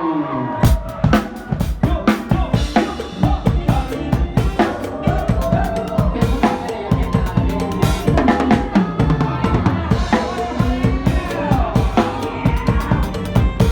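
Drum kit playing a lively mor lam groove, with kick drum, snare and rimshots, over a band track that carries pitched melodic lines. It starts under a second in.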